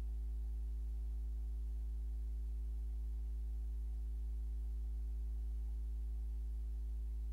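Steady low electrical hum with a series of faint higher overtones, unchanging throughout.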